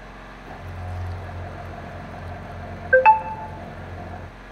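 Sokany electric citrus juicer's motor humming as an orange half is pressed down onto its spinning reamer, starting about half a second in and stopping just after four seconds. About three seconds in, a brief, bright ringing clink is the loudest sound.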